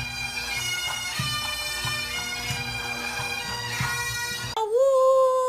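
Droning music, a steady drone under a reedy melody, that cuts off about four and a half seconds in and gives way to a dog's long, steady howl.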